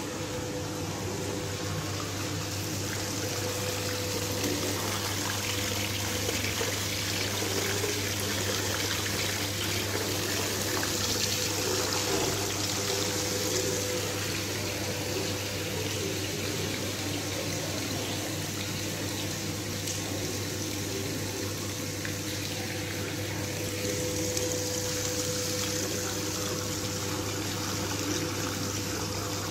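Water running from a pipe into the bowl of a bakery dough mixer, filling it: a steady pouring and splashing, with a steady low hum underneath.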